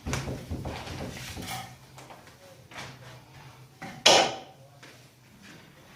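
Knocks and clatter of wood being handled during carpentry work, with one loud, sharp noise about four seconds in.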